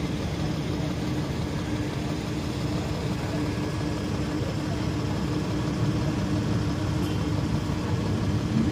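An engine idling steadily, a constant low rumble with a held hum.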